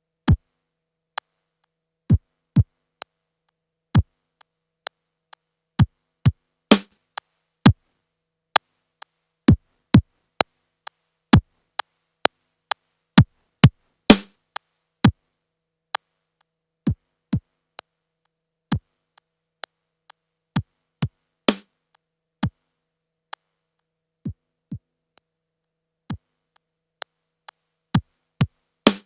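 Yamaha PTX8 drum machine playing a sparse sequenced beat through an Akai EX70C compressor. Short kick-drum hits fall in pitch, a snare lands about every seven seconds, and light clicks fall between, each hit set apart by silence.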